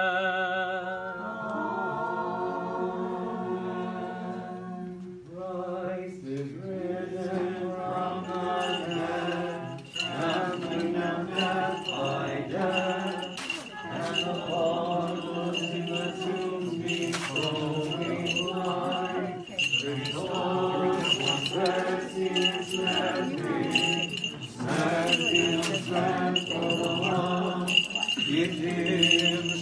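Voices sing a long, held "Amen" in church chant, followed by a crowd of voices singing and talking together. About eight seconds in, a small bell starts ringing repeatedly in a steady, high tone, with jingling clicks.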